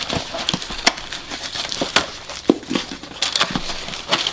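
Packing tape being pulled off and shipping packaging crinkling as a parcel is opened, with sharp, irregular crackles and snaps.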